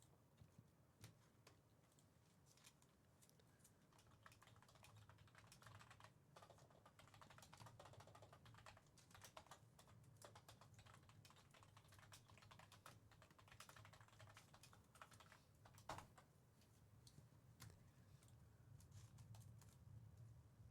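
Faint, irregular clicking of typing on a computer keyboard, with one slightly louder click about three-quarters of the way through.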